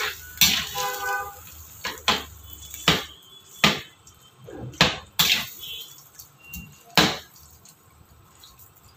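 Steel slotted spatula stirring raw chicken pieces in a metal kadai, scraping and knocking against the pan's side in sharp, irregular clanks about once a second.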